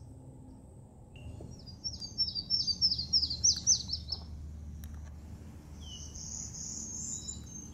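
Yellow-throated warbler singing: a quick run of about ten clear, down-slurred whistled notes over about two and a half seconds. Near the end a second, higher and buzzier bird song follows, over a steady low background rumble.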